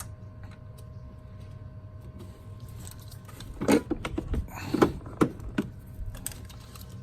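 Plastic and metal clicks, knocks and rattles from a car's engine-bay fuse box being unclipped and moved aside by hand, in a short cluster from about three and a half to six and a half seconds in, over a low steady hum.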